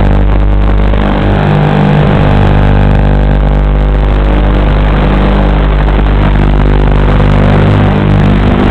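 FPV racing quadcopter's electric motors and propellers in flight: a loud, continuous buzz made of several steady tones, which shift in pitch a second or two in as the throttle changes.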